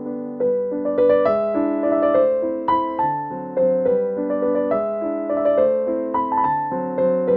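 Background music: a gentle piano tune of melody over chords, the notes struck at an even, unhurried pace.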